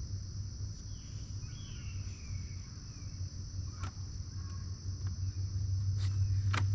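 Steady high-pitched drone of insects over a low hum, with a short falling bird call about two seconds in and a few sharp clicks near the end.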